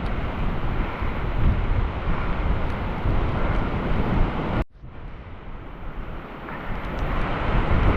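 Strong wind buffeting the microphone, a dense low rumble. It cuts off abruptly a little past halfway, then comes back quieter and builds again near the end.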